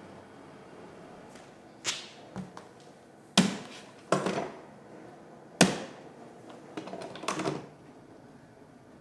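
Hand tools and clamps knocked and set down against wood: about half a dozen sharp knocks and clatters, the loudest about three and a half and five and a half seconds in, then a quicker cluster near the end.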